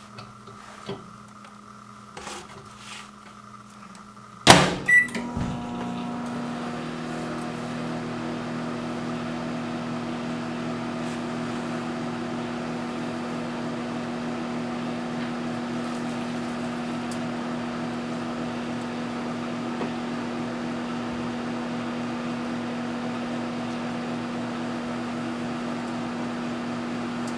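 Microwave oven door shut with a knock about four and a half seconds in after a few small clicks, a short keypad beep, then the oven starts up and runs with a steady hum.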